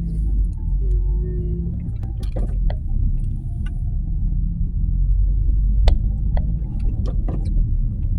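Nissan Qashqai 1.2 running with a steady low rumble, and a few sharp clicks and ticks over it.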